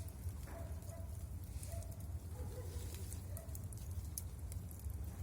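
Bonfire crackling: scattered sharp crackles over a steady low rumble, with short faint calls recurring about once a second.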